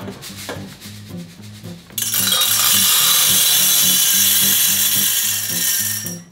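Decaffeinated green coffee beans poured through a metal funnel into a wire-mesh roasting basket. A few scattered clicks give way about two seconds in to a loud, dense rattling hiss as the beans stream in, fading just before the end.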